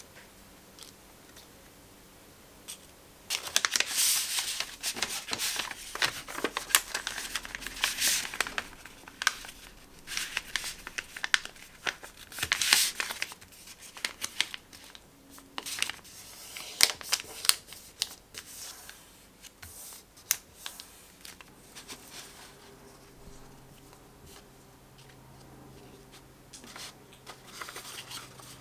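Kraft paper rustling and crinkling as it is folded and creased by hand around sticker sheets, with light taps and scrapes on the desk. It starts about three seconds in, is busiest in the first half, and grows softer later on.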